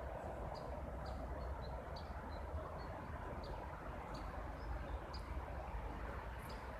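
Small birds chirping, short high chirps about once or twice a second, over a steady low background rumble.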